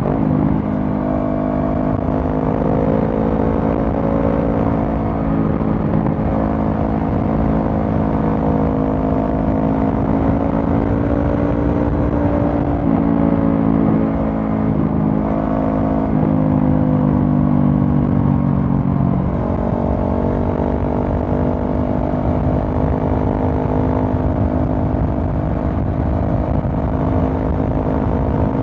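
Honda CB500F's parallel-twin engine through a Mivv GP Pro stainless slip-on exhaust while riding, the engine note holding fairly steady and then stepping and gliding in pitch several times in the second half, as with throttle and gear changes.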